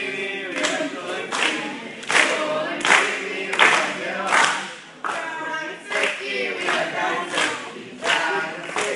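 A group of voices singing without instruments, keeping time with sharp hand claps about every three-quarters of a second.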